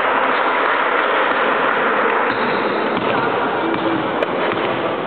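Steady crowd din of many voices in a reverberant gymnasium, easing a little near the end, with one sharp knock about four seconds in.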